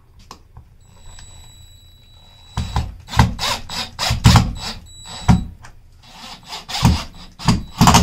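Cordless drill driving a wood screw through a doorbell mounting bracket into wooden trim. A faint motor whine starts about a second in, then from about two and a half seconds the drill runs in a series of short, loud bursts as the screw goes in.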